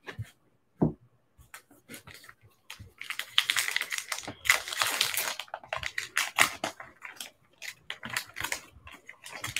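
Wrapper of a pack of baseball trading cards being torn open and crinkled by hand: a single short tap near the start, then dense crackling of the wrapper about three seconds in that thins to scattered crinkles.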